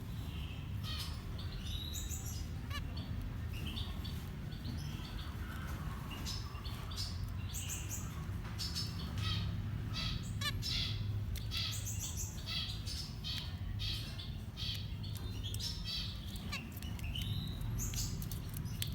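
Small finches chirping: many short, high calls in quick runs, over a low steady hum.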